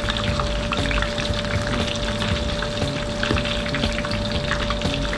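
Big seafood kakiage tempura fritter deep-frying in a wok of hot oil: steady sizzling with many small crackling pops.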